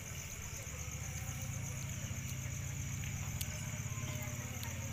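A small engine running steadily at idle, a low pulsing hum, with night insects trilling steadily in the background.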